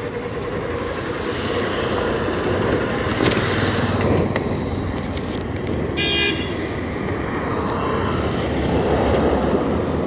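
Road traffic rumbling past, with a vehicle horn tooting briefly about six seconds in.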